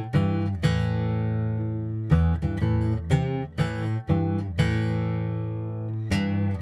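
Acoustic guitar strummed in chords: short runs of strokes alternate with chords left to ring out, twice held for over a second.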